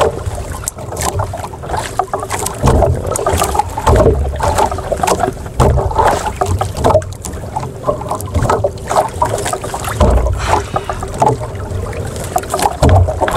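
Choppy water slapping and splashing against a small outrigger boat, with irregular knocks and uneven gusts of wind rumbling on the microphone.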